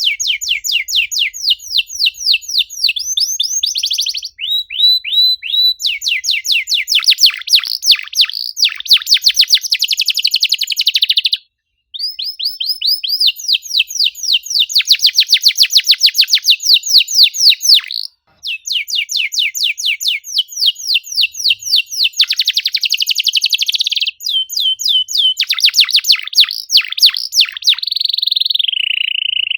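Domestic canary singing in fast, tightly packed trills of repeated high chirping notes, the 'cuit cuit' bursts that canary keepers play to set other canaries singing. The song stops briefly twice.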